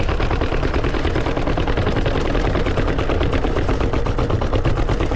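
Mountain bike being ridden: a fast, steady rattling clatter of about eight to ten clicks a second over a low rumble.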